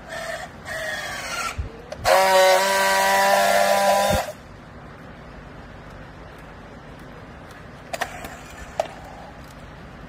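Battery-powered handheld strapping tool tensioning a plastic bale strap: two short motor whines sliding down in pitch as the strap tightens, then a loud steady buzz for about two seconds as the tool friction-welds the strap, cutting off sharply. A couple of sharp clicks near the end.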